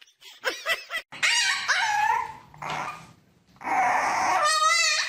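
A dog vocalizing in two loud bouts, one about a second in and one near the end. The second bout is a drawn-out cry that wavers in pitch.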